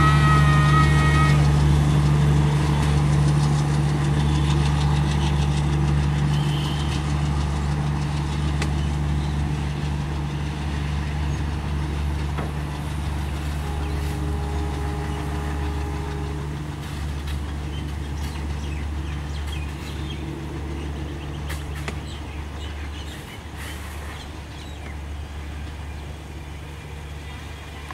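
A departing passenger train's Alco diesel locomotive, its engine running with a steady low drone that fades steadily as the train pulls away.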